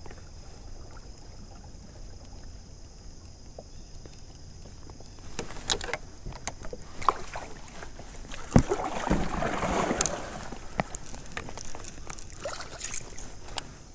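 Kayak in moving water: a low, steady wash of water for the first few seconds, then a run of knocks against the hull and a burst of splashing about nine seconds in.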